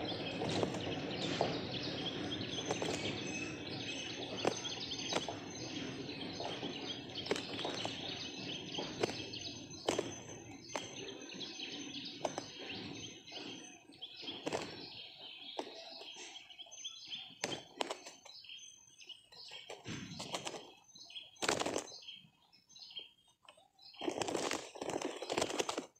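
Spotted doves fighting: repeated wing flapping and sharp knocks, with bird chirps over a steady background hiss that thins out about halfway through.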